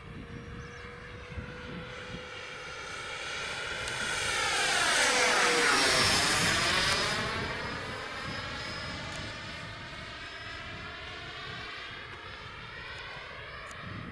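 Freewing Yak-130 RC jet's 90 mm electric ducted fan whining as the model makes a close pass. The sound swells to its loudest about five to six seconds in, its pitch drops as it goes by, and it eases back to a steadier, more distant whine.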